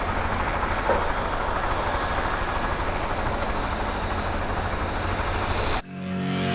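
Helicopter flying, a steady engine and rotor noise with a pulsing low end, cut off suddenly near the end as music begins and swells.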